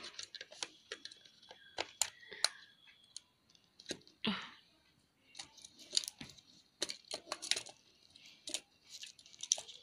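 Plastic clicks and scraping of a bulky white travel plug adapter being pushed into and worked about in a power strip socket: scattered sharp clicks, with a short scraping rush about four seconds in.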